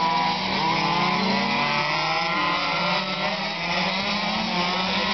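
Several radio-controlled race cars running on a track, their small motors buzzing together at high pitch, each rising and falling as the cars speed up and slow through the corners.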